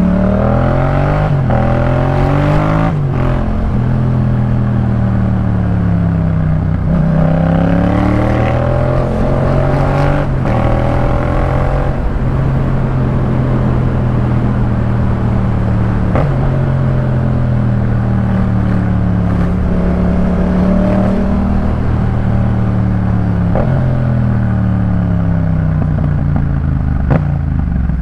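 Yamaha MT-07 parallel-twin engine breathing through a Jeskap K4 full aftermarket exhaust, under way. The revs rise and fall several times through gear changes, with stretches of steady cruising in between. A few sharp cracks are spread through the ride.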